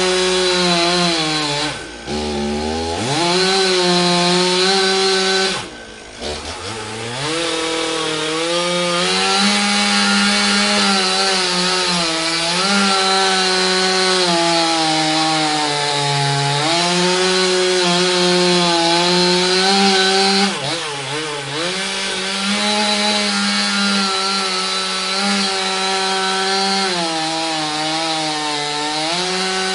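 Petrol chainsaw running at high revs and cutting wood, its engine note wavering under load. The revs drop sharply and climb back twice within the first several seconds and once more about two-thirds of the way through.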